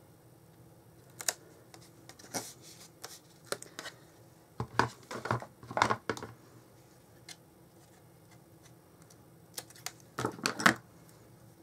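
Scattered clicks and rustles of cardstock being handled while double-sided red line tape is pulled off its roll and pressed along a paper edge, busiest about halfway through and again near the end.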